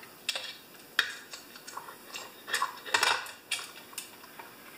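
Loose chainsaw chain clinking and rattling against the steel guide bar as it is worked onto the bar by hand: scattered light metallic clicks, with a sharp one about a second in and a cluster near three seconds.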